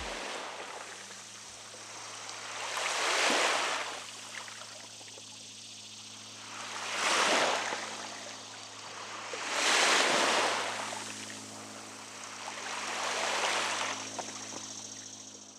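Small waves washing in on a shoreline, four separate swells of hiss a few seconds apart, over a faint steady low hum.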